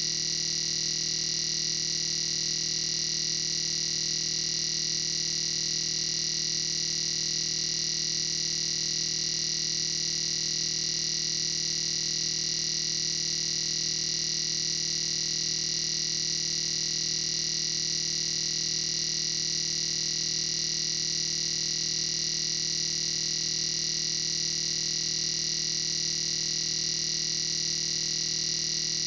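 A steady, unchanging electronic drone: several fixed tones with a strong high hiss-like band on top, holding at one level without any rhythm or change.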